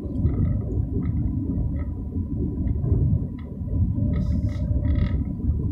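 Steady low rumble of a car moving along a smooth road, heard from inside the vehicle: road and wind noise.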